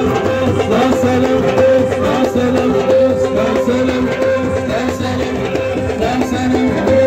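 Live southern Algerian band music played loud: voices singing over a steady held tone, with a rhythmic percussion beat.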